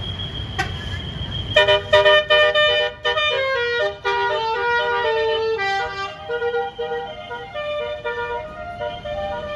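A bus's Basuri 'telolet' multi-trumpet air horn plays a quick stepping melody of separate pitched notes. It starts about a second and a half in, after a steady high tone.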